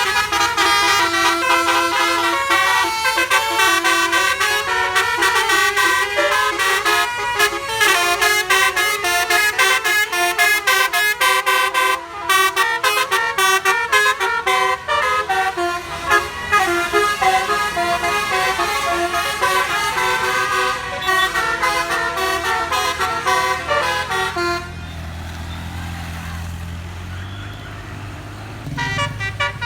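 A bus's basuri 'telolet' multi-tone air horn playing a fast melody of quickly changing notes. About 25 seconds in the horn stops and a low engine rumble is left, then the horn tune starts again near the end.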